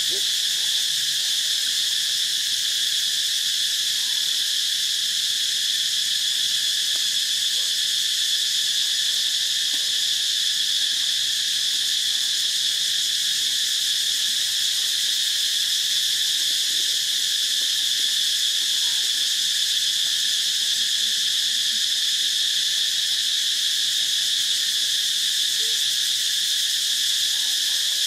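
Insect chorus in dry forest: a steady, high-pitched drone that holds unchanged throughout.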